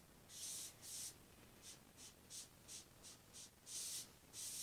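Foam brush rubbing wood stain into a bare wooden board: a quiet series of short swishing strokes, about two or three a second, a few of them louder than the rest.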